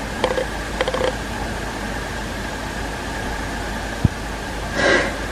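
Steady background hum with faint rapid clicking in the first second and a single sharp knock about four seconds in. Near the end comes a short, breathy sharp intake of breath, the build-up of a sneeze that has not yet come.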